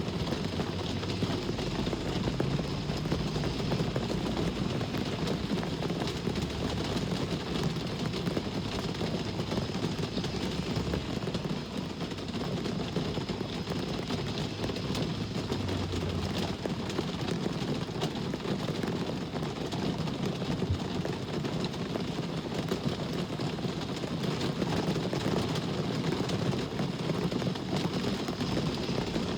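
Steady rain falling, mixed with the low rumble of road traffic.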